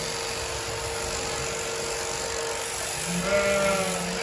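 Electric sheep-shearing handpiece running steadily as it clips the fleece off a lamb, a constant buzzing hum. About three seconds in a sheep gives one long bleat over it.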